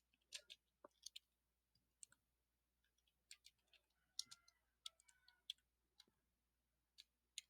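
Faint, irregular clicking of computer keyboard keys: typing a short line of code.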